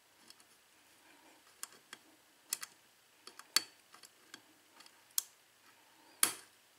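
Light, irregular metallic clicks of a hook pick working the pin stacks of a 6-pin Ilco KIK lock cylinder under tension; among them is a pin setting at the shear line (pin 2). A short rush of noise comes near the end.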